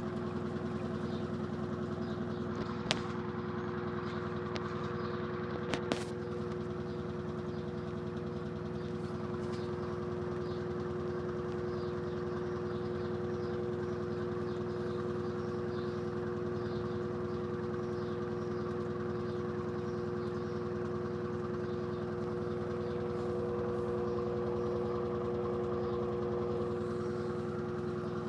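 Electrolux LED14 top-load washing machine running with its lid closed: a steady motor hum with a constant tone. A few short sharp clicks come in the first several seconds.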